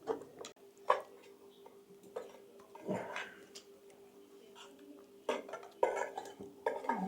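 Pots, dishes and metal utensils clinking and knocking as they are handled: about seven separate sharp knocks and scrapes with short gaps between, over a faint steady hum.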